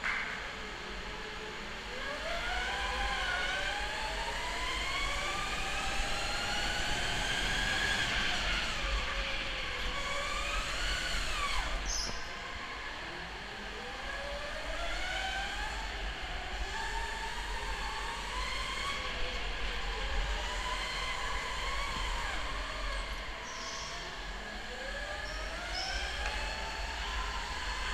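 Electric go-kart motor whining under load, its pitch rising over several seconds as the kart speeds up and dropping away each time it slows, over a low wind rumble on the onboard microphone.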